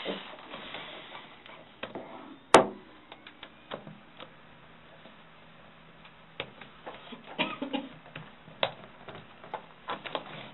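Scattered clicks and light taps from a laptop being worked at, its keys and trackpad pressed, with one sharp, loud click about two and a half seconds in.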